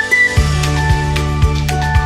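Upbeat background music with a steady beat and a high whistled melody over a bass line.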